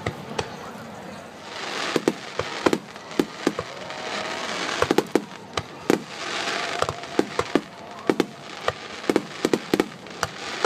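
Aerial fireworks shells bursting: many sharp bangs, often several in quick succession, with stretches of dense hiss between them.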